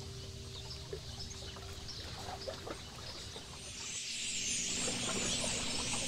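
Scattered high bird chirps over faint steady tones that die away about halfway through. From about four seconds in, a dense, high chattering chorus swells up and grows louder.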